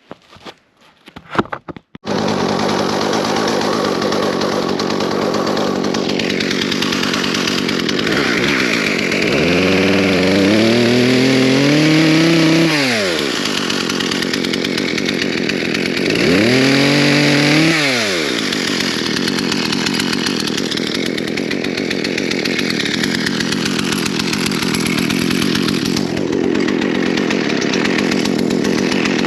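Craftsman 36cc two-stroke chainsaw running loudly from about two seconds in, its engine pitch rising and then falling away twice near the middle.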